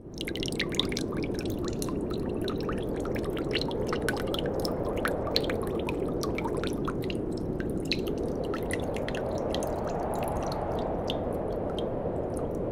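Water pouring out of a tipped drinking glass: a steady low rush with many small drips and splashes spattering over it, which thin out near the end.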